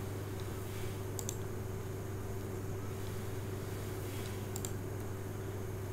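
A few computer mouse clicks: a quick pair about a second in and another just before the five-second mark, over a steady low hum.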